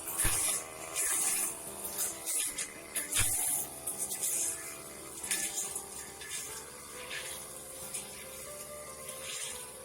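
Background music with sustained chords, over irregular rushes of rain hiss that come in gusts, loudest in the first second or so.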